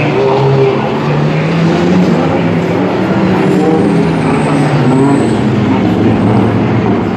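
Race car engines running hard, several at once, their pitch rising and falling as they accelerate and pass.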